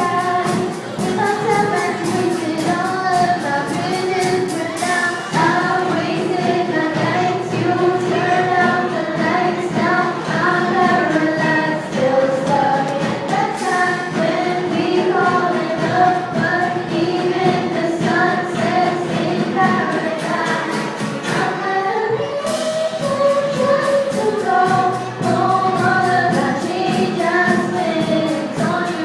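Several voices singing a melody together over music with a steady beat.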